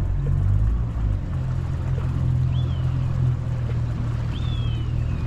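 Boat's outboard motor running steadily on the river, its note shifting about a second in, with water rushing past the hull. A bird gives two short high calls that fall in pitch, near the middle and again later.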